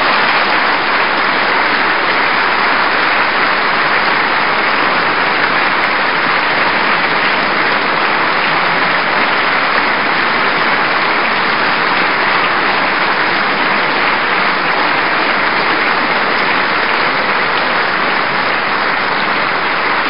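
Long, steady applause from the deputies filling a parliamentary chamber.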